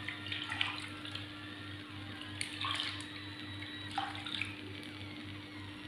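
Steady hiss of thin regag flatbread cooking on a hot round metal griddle over a gas burner, with a low hum underneath and a few short crackles.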